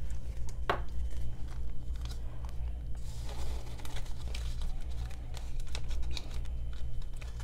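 Paper banknotes and a clear plastic binder pocket rustling and crinkling as cash is slid into the pocket, with scattered small clicks, over a steady low hum.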